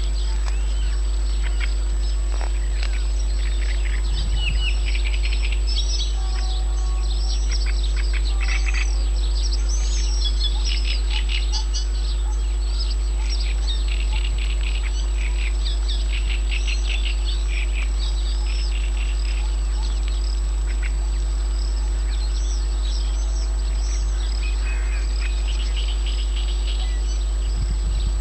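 Many wild birds calling and singing at once, with short chirps and rapid trills overlapping throughout, over a steady low rumble and a faint constant high whine.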